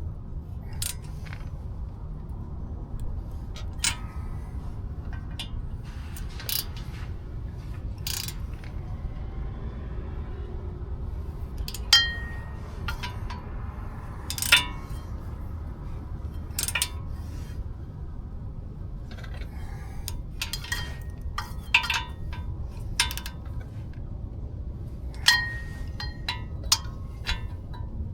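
Irregular metal-on-metal clinks and taps from a ratchet and socket on steel spindle nuts, some ringing briefly, the loudest about twelve and fourteen seconds in, over a steady low shop hum.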